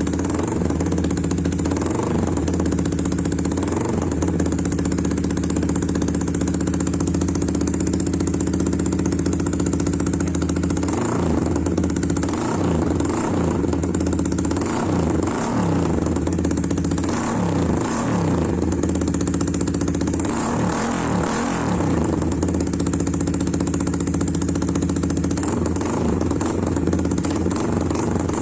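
Honda RS150fi's single-cylinder engine idling steadily through a Daeng aftermarket muffler with its silencer insert removed.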